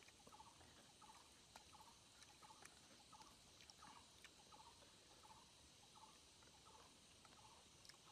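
Near silence, with a faint short animal call repeating about every half second and a few soft clicks.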